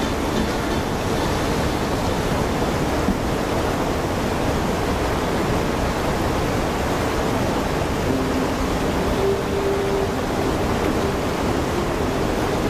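Fast river rapids rushing steadily over rocks, a constant even rush of whitewater.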